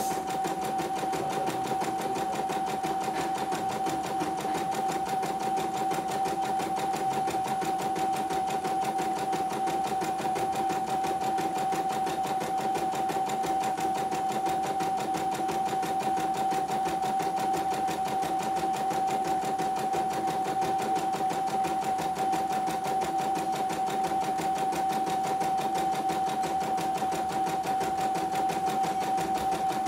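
CNY computerized household embroidery machine stitching a test design, running steadily with a constant motor whine. It is a quality test after repair of a system error, and it runs smoothly.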